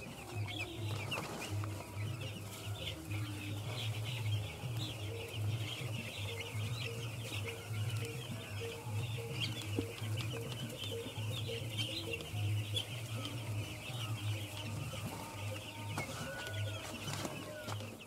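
A flock of six-day-old broiler chicks peeping continuously, a dense mass of high cheeps. An uneven low hum pulses underneath.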